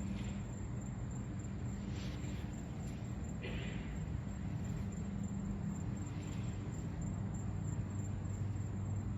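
Outdoor ambience: a steady low hum under a faint hiss, with a few short, soft high-pitched sounds, the clearest about three and a half seconds in.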